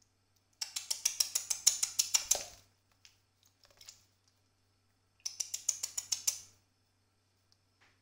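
A young sparrow bathing in a shallow dish of water, beating its wings in the water. Two bouts of rapid splashing at about eight beats a second, the first about two seconds long and the second shorter, about five seconds in.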